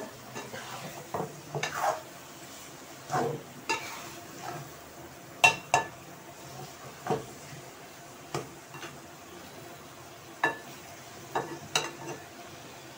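Metal spoon stirring and scraping minced meat in a frying pan, with irregular clinks and knocks of the spoon against the pan, the loudest about five and a half seconds in. Under it, a low steady sizzle of the mince frying in ghee.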